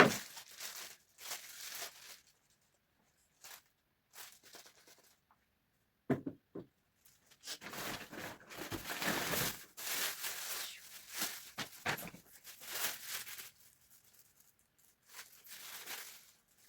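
Shopping packaging handled by hand, rustled and torn in irregular bursts, with a sharp knock at the very start and another about six seconds in.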